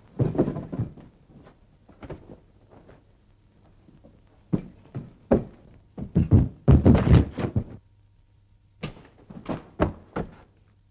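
Thuds, knocks and bangs of a physical struggle, bodies bumping against furniture and doors. They come irregularly in three clusters, with short quiet gaps between them.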